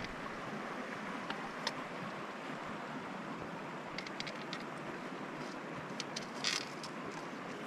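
Steady rush of flowing stream water, with a few light clicks and taps scattered through it as the snagged fishing line is worked free among the rocks.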